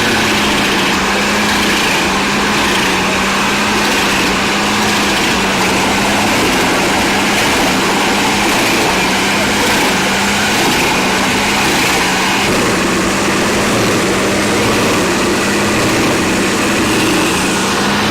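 Engine of a wood-processing machine running steadily at a constant pitch, with a dense mechanical rush over it.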